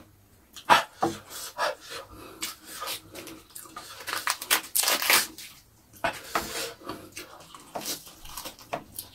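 Close-up eating sounds: chewing and lip smacking, with crisp crackling and rustling as raw bok choy leaves are pulled apart and bitten. It comes as a run of irregular short snaps, busiest around the middle.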